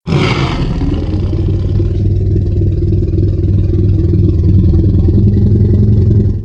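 Tyrannosaurus rex sound effect: a deep, rumbling growl lasting about six seconds. It opens with a brief breathy hiss and cuts off abruptly.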